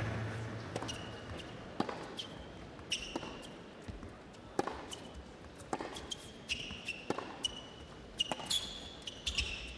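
A tennis rally: ball struck and bouncing about once a second, with sneakers squeaking on the hard court between the hits.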